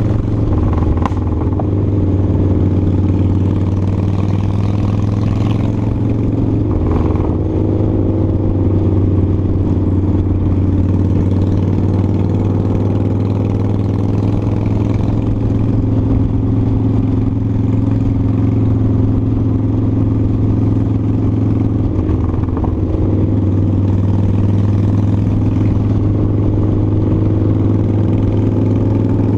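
Cruiser motorcycle engine running steadily at road speed, heard from the rider's bike, its note easing briefly twice with changes in throttle.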